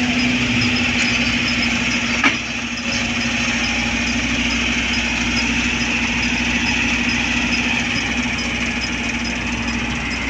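Excavator's diesel engine running steadily, with one sharp knock a little over two seconds in.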